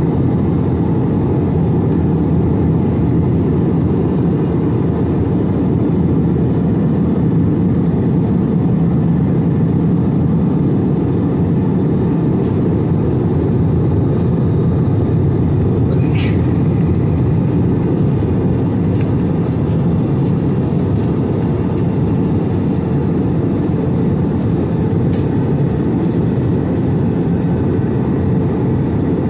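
Steady roar of jet engines and airflow heard inside the cabin of an Airbus A321-211 with CFM56 engines in flight. A sharp click comes about halfway through, followed by a few faint ticks.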